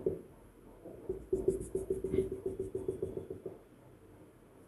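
Whiteboard marker squeaking in quick short strokes, about eight or nine a second, as a dashed curve is drawn. The strokes start about a second in and stop at about three and a half seconds.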